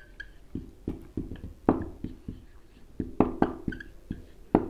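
Felt-tip marker writing on a whiteboard: a string of short taps and scrapes as the strokes of the letters go down, with a couple of brief squeaks.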